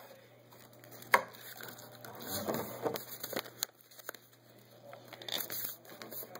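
A sheet of paper rustling and crinkling as it is folded over and the crease pressed down, with a single sharp click about a second in.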